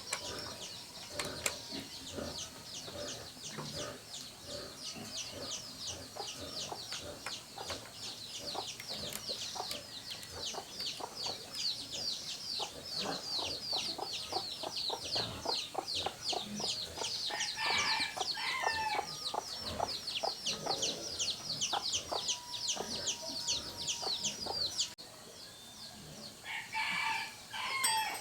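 Chickens calling: a rapid, steady run of high peeps for most of the stretch, stopping abruptly near the end, with louder clucking calls twice, over light clicks and taps.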